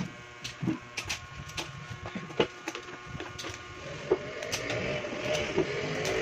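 Coins clicking against each other and on a wooden tabletop as they are picked up and stacked into piles, in sharp, irregular clicks a few times a second.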